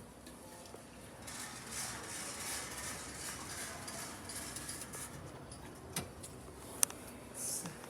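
Passenger lift mechanism running: a soft rushing for about four seconds, then two sharp clicks and a short hiss near the end.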